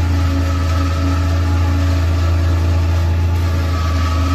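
Tractor and single-row forage chopper running steadily while chopping maize and blowing it into a trailer: a loud, even engine drone with a few held machine tones above it.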